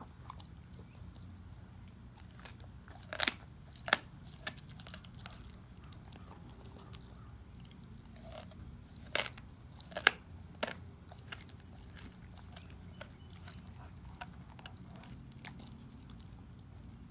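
A dog chewing raw pork ribs: soft wet chewing clicks broken by sharp bone crunches, two loud ones about three and four seconds in and three more around nine to eleven seconds in.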